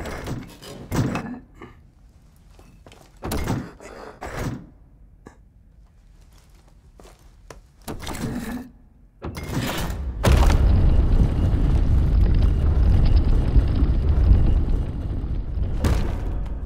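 Carved stone blocks in a wall clunking as they are pressed in, several separate knocks, then a heavy stone lock mechanism grinding and rumbling for about six seconds.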